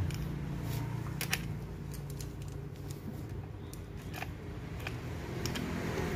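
A few scattered light metal clicks and rattles as a saw chain is handled and seated over the sprocket and 12-inch bar of an angle-grinder chainsaw attachment, over a steady low hum.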